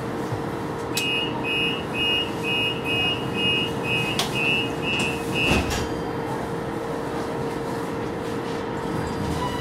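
Tram door-closing warning beeps, a rapid run of high beeps about two a second for some four seconds, ending with knocks as the doors shut, over the steady hum of the stationary tram's equipment.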